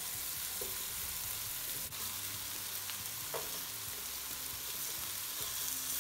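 Caul-fat-wrapped köfte sizzling on a hot enamel griddle plate over a gas stove: a steady hiss of frying fat, with a few faint touches as peppers are set down on the plate.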